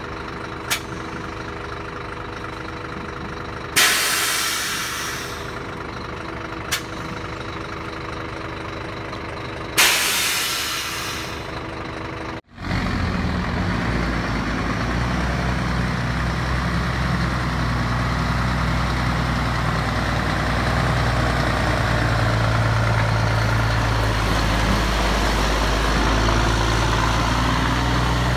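Scania R420's straight-six diesel idling, with two loud hisses of released compressed air, each fading over about a second and a half, and a short click before each. After a cut about halfway through, the engine runs louder and deeper through its straight-through exhaust as the truck pulls away and drives slowly past.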